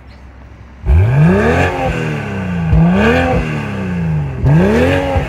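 2024 BMW X3 M40i's turbocharged 3.0-litre inline-six, heard at the exhaust tips, idling and then revved three times. The first rev comes about a second in, and each one climbs in pitch and falls back toward idle.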